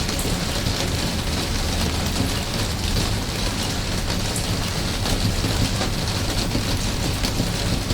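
Steady rain falling and pattering on surfaces, a dense even hiss with many fine drop impacts and a low rumble underneath.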